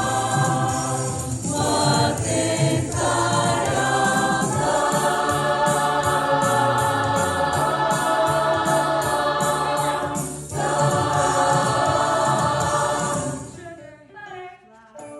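Choir singing together in sustained, held notes, with a light high ticking pulse about three times a second through the middle. The song ends on a held chord that dies away about 13 to 14 seconds in.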